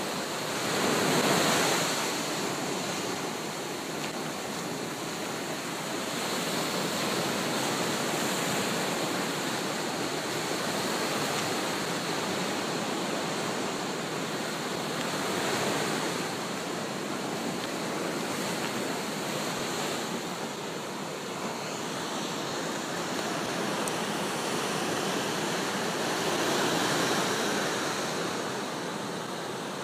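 Small waves breaking and washing up a sand beach: a steady surf wash that swells louder a few times as waves come in.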